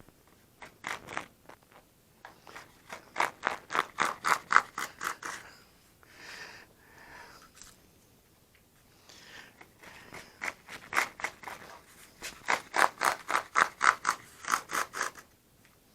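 Razor plane shaving hard balsa along a model stabilizer's edge in quick, short scraping strokes, about three a second, in two runs with softer scraping between them.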